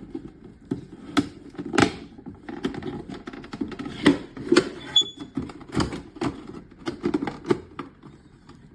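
Plastic fan shroud of an air purifier being fitted into place by hand: irregular clicks and knocks of plastic parts.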